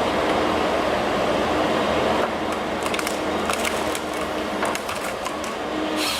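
A heavy forestry machine running under load while it works on wood, with a cluster of sharp cracks and splintering snaps starting about two seconds in.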